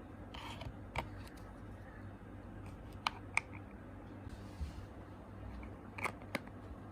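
Scattered light clicks and taps, a few seconds apart and one or two close together, with a couple of brief soft rustles over a faint steady hum: small objects being handled.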